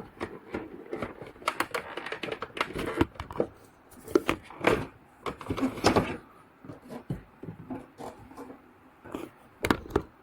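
Irregular plastic clicks, knocks and scrapes as the ABS plastic water tank of a Yangzi CS10E dehumidifier is pulled out of its housing, with the sharpest knocks around the middle and a cluster near the end.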